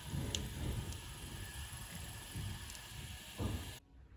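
Whole spices in liquid simmering in a stainless steel saucepan on a gas hob: a steady hiss with irregular low bubbling, cutting off abruptly near the end.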